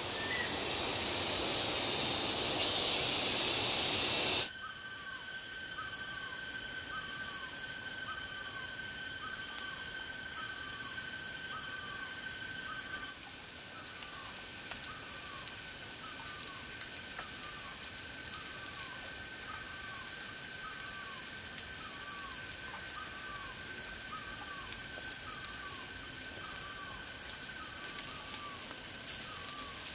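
Tropical forest ambience. A loud steady hiss for the first four seconds or so cuts off suddenly, then steady high insect tones and a short falling call repeated about once a second. Near the end come a few sharp crackles from a wood campfire.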